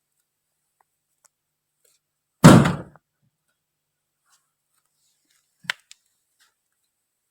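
A sleeping woman snoring: one loud, short, rattling snore about two and a half seconds in. A faint click near the end.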